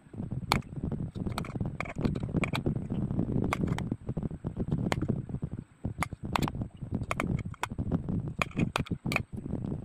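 Knife slicing a cucumber held in the hand over a steel plate: a crisp click with each cut, about a dozen at an uneven pace of one or two a second, over a low steady rumble.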